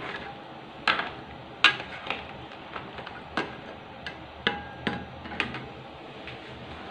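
Metal cooking utensils knocking and scraping against a metal wok while whole crabs are stirred in coconut-milk curry: about ten sharp, irregular clinks, the loudest a little under two seconds in.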